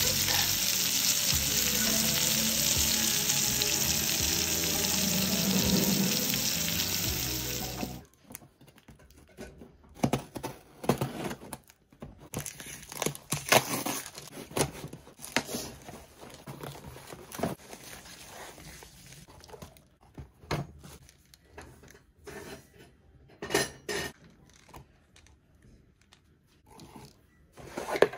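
Chicken pieces sizzling as they fry in hot oil in a pan, a steady dense hiss that cuts off abruptly about eight seconds in. After that comes quieter handling of a cardboard parcel: scattered rustles, taps and crinkles as the box and its packaging are opened.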